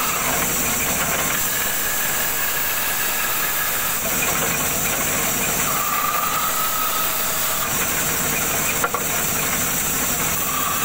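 Large bandsaw running and cutting through a block of wood: a steady hiss and machine hum with a faint whine at times. A single sharp click near the end.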